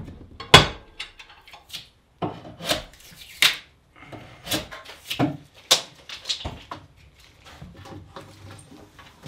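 Firewood being gathered and handled: a string of irregular wooden knocks and clunks as pieces of wood hit each other, with some scraping in between.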